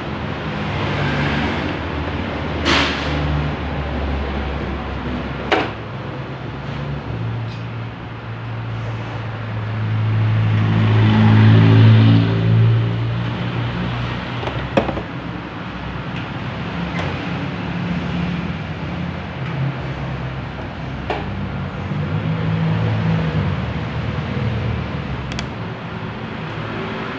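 A motor vehicle's engine runs steadily, swelling louder for a couple of seconds about ten seconds in. A few sharp clicks and knocks sound over it.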